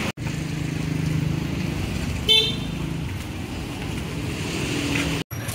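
Street traffic noise with a motor vehicle running, and a short vehicle horn toot a little over two seconds in.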